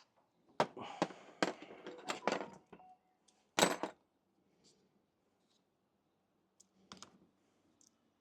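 Sharp metal clicks and knocks of an Allen key working the tight bolts on a car's vacuum pump: a quick run of clicks in the first few seconds, one louder knock about three and a half seconds in, and a single click near the end.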